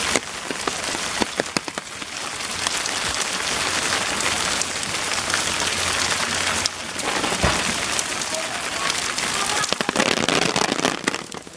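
Heavy rain falling steadily, with many sharp taps of individual drops striking close by.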